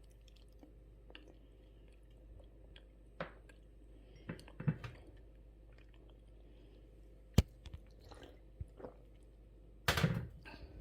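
Someone eating: quiet, irregular chewing and wet mouth noises, with a sharp click a little after seven seconds and a brief louder cluster of noise near the end.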